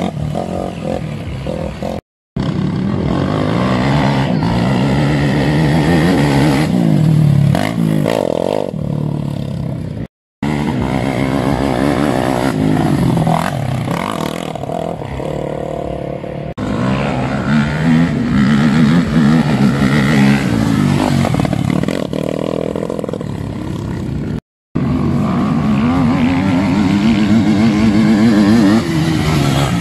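Racing quad (ATV) engines revving and accelerating on a dirt track, the pitch rising and falling as riders throttle through turns and jumps. The sound cuts out briefly three times.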